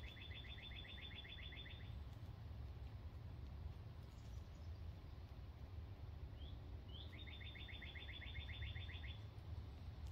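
A songbird singing a dry, even trill of rapid repeated notes, each trill opened by a short rising note and lasting about two seconds: once at the start, then again about seven seconds in. A steady low rumble lies underneath.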